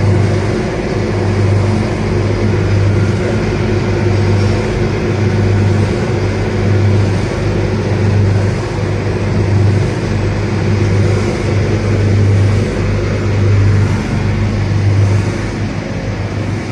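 V-S45 cable granulator line running: a loud, steady mechanical hum under a broad noise. A deep throb swells and fades regularly, about once every second and a half.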